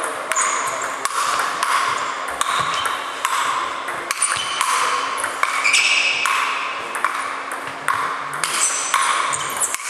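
Irregular sharp clicks of a ping pong ball striking sandpaper-faced hardbat paddles and bouncing on the table, ringing in a large hall.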